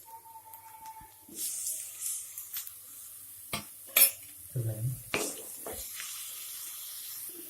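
Chopped tomato going into a pan of cooking spinach and potato, with a spoon clinking and scraping against the pan and the vegetables sizzling quietly. The loudest sound is a sharp clink about four seconds in.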